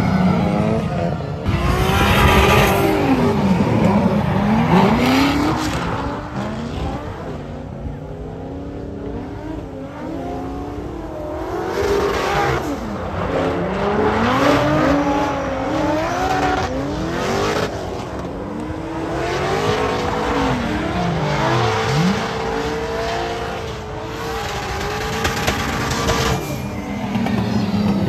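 Two drift cars running in tandem, one of them a turbocharged 1.5JZ-swapped Nissan S13. Their engines rev up and drop off again and again through the drift, over tyres screeching in repeated bursts as they slide.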